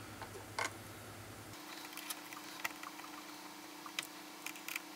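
A few faint clicks and ticks of a screwdriver and a small screw against the 3D-printed parts of a pinball flipper assembly, as the link is fastened on.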